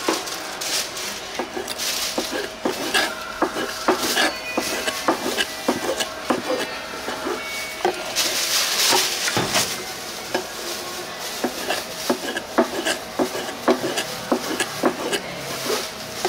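Kitchen utensils and dishes clattering: irregular clicks and knocks of cutlery and crockery at a food stall, over a faint steady hum, with a brief rush of hiss about nine seconds in.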